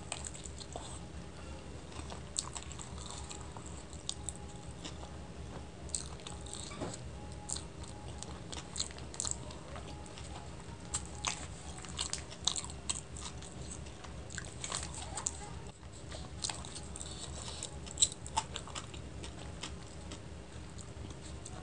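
Close-miked biting and chewing of a chicken roll, with many small irregular mouth clicks, over a faint steady hum.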